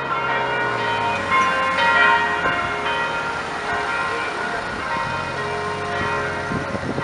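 Bells ringing, many overlapping steady tones struck at different moments, over the low sound of an Audi R8's engine as the car drives away in traffic, fading about a second in and returning near the end.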